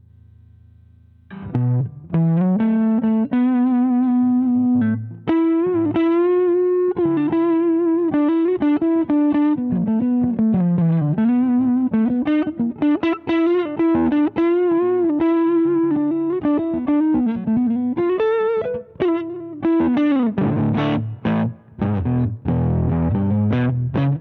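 Electric guitar played through a Danelectro Transparent Overdrive V2 pedal, giving a lightly overdriven tone. It plays a lead line of single notes with vibrato and pitch bends, then switches to strummed chords near the end. A faint amp hum is heard just before the playing starts.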